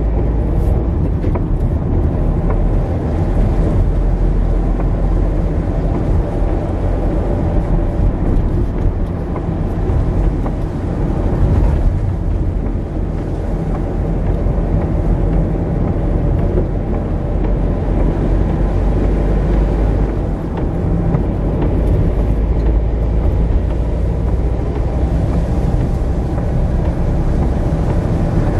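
Steady engine and road rumble inside a moving car's cabin while driving.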